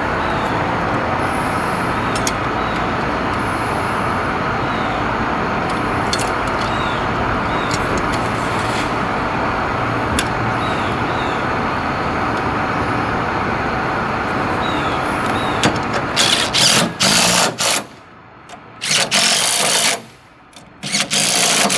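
Steady vehicle running noise, then near the end three short, loud stop-start bursts of a power tool, as when a driver runs in the stop-arm frame's bolts.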